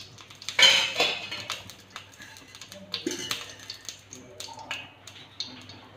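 A voice and background music, with a few short sharp clicks and taps; a loud burst of sound comes just under a second in.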